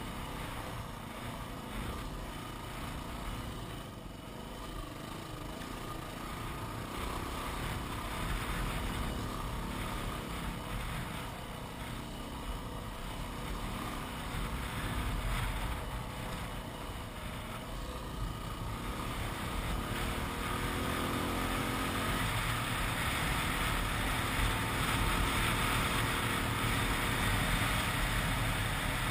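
Yamaha WR250R's single-cylinder engine running as the motorcycle is ridden along a sandy track. The engine note rises about two-thirds of the way through, and the sound gets somewhat louder toward the end.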